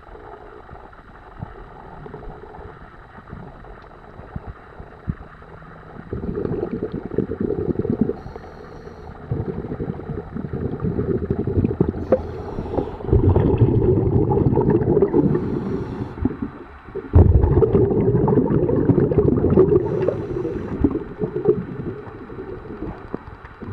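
Underwater recording of a scuba diver's exhaled bubbles rushing and gurgling from the regulator in several long surges, over a low hiss with scattered small ticks.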